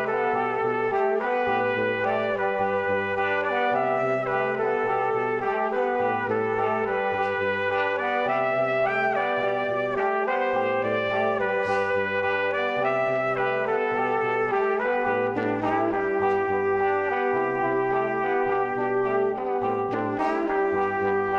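Background music led by brass-like instrumental melody over a steady bass line.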